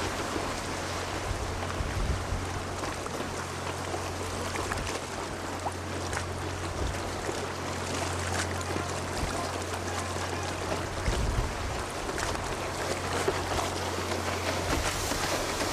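Wind buffeting the microphone, over the wash of small waves on the shore, with a steady low hum beneath.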